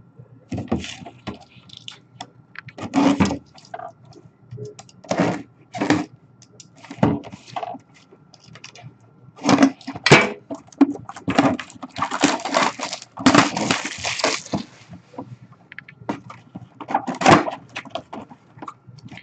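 Plastic shrink-wrap crackling and tearing as it is stripped off a cardboard hobby box, mixed with knocks and scrapes of the box being handled, in irregular bursts with a longer stretch of crackling past the middle.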